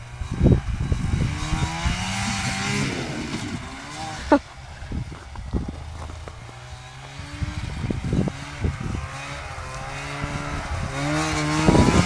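Arctic Cat F5 snowmobile's two-stroke engine running and revving up and down, rising and getting louder near the end. A sharp click about four seconds in.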